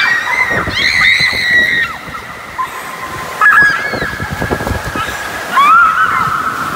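Riders screaming on a raft as it swirls through a funnel water slide, with water rushing and sloshing around them. High shrieks come near the start, about halfway through and again near the end.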